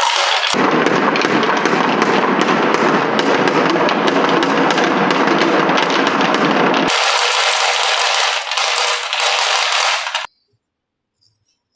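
Marbles clattering rapidly down a wooden marble run, a dense stream of clicks and rattles that changes tone abruptly about half a second in and again near seven seconds, then stops suddenly about ten seconds in.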